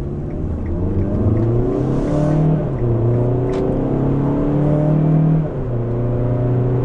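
2013 Kia Soul's four-cylinder engine, heard from inside the cabin, accelerating hard with the six-speed automatic in manual mode. The revs climb and drop twice as it is shifted up, then hold steady.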